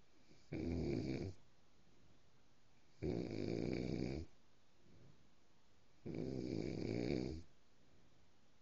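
Snoring: three loud snores about three seconds apart, each lasting a little over a second, with quieter stretches in between.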